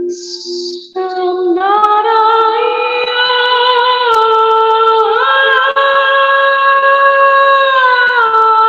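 A woman singing without words in channelled 'light language' style, holding long notes that slide from one pitch to the next a few times. The voice enters about a second in, after a brief hiss.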